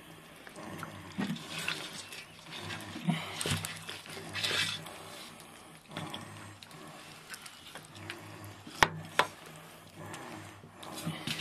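A knife cutting slits into a raw whole chicken: wet, irregular scraping and squelching of the blade through skin and flesh, with two sharp clicks close together about nine seconds in, over a faint steady low hum.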